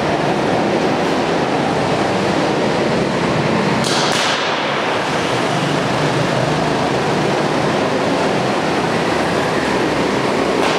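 Go-kart engines running on an indoor track: a loud, steady, echoing drone with no break, and a brief sharper sound about four seconds in.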